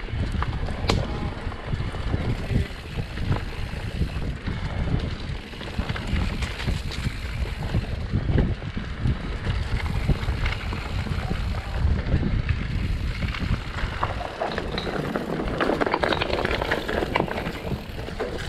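Wind buffeting the microphone of a camera on a mountain bike ridden fast down a rough dirt trail, with a deep rumble and a constant run of knocks and rattles from the bike over the bumps.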